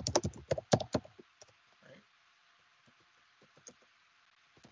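Typing on a computer keyboard: a quick run of keystrokes in the first second, then a few scattered, fainter keystrokes.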